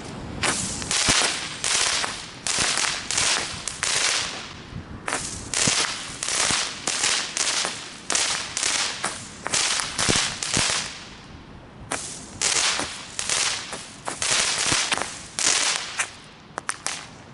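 A consumer fireworks battery (cake) firing shot after shot, about two sharp hissing cracks a second. It pauses briefly about eleven seconds in, then resumes, ending with a few small quick crackles.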